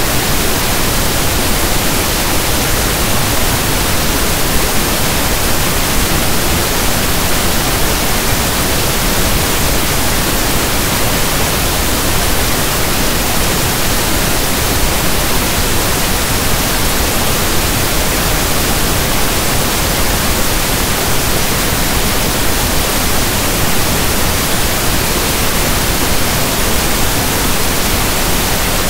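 Steady, loud pink noise: an electronically generated hiss like soft static from a radio tuned between stations, even in level with no tones or breaks.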